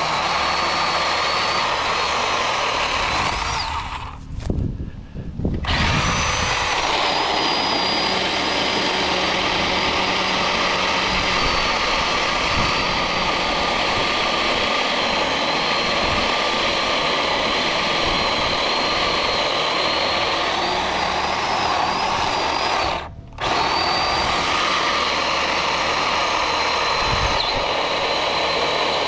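Battery-powered electric chainsaw running as it cuts into a tree trunk: a steady high motor whine with the chain rasping through the wood. The saw stops for about a second and a half about four seconds in, and for a moment again later on.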